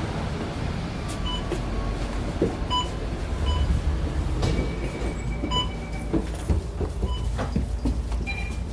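Low engine and road rumble inside a MAN Lion's City double-deck diesel bus, steady throughout. Short high electronic beeps sound about half a dozen times at uneven intervals over it.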